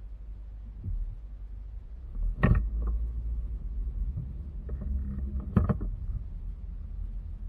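Low, steady rumble of a car creeping forward in traffic, heard from inside the cabin, with two sharp knocks about two and a half seconds in and again some three seconds later, and a few lighter taps.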